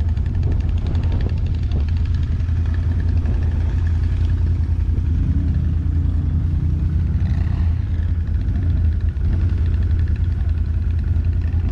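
ATV engine running steadily, a continuous low drone with no pauses.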